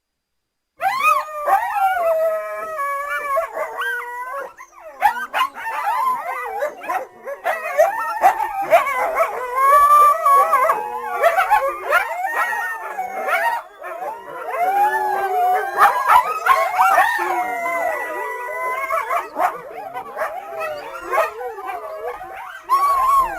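A group of coyotes howling together: several high, wavering calls overlap and slide up and down in pitch, starting about a second in.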